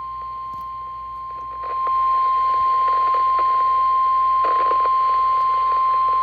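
NOAA Weather Radio's 1050 Hz warning alarm tone: one steady, unbroken high beep that signals a warning broadcast is about to follow. Under it is radio reception hiss with a few crackles, which grows louder about two seconds in.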